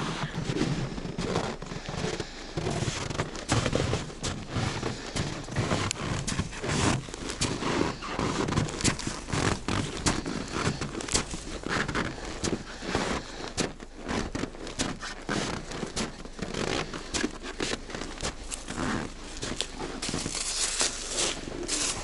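Footsteps crunching through dry, wind-packed snow in quick irregular steps, with clothing rustle. Near the end a gloved hand scrapes and brushes snow off rock.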